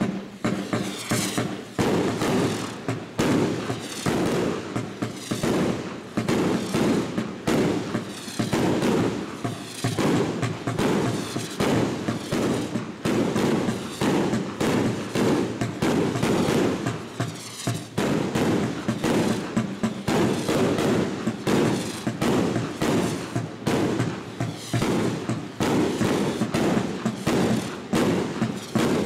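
A 100-shot 30 mm fireworks cake with its tubes in a straight line (I-shape), firing its shots in quick, steady succession, about three or four a second, without a break.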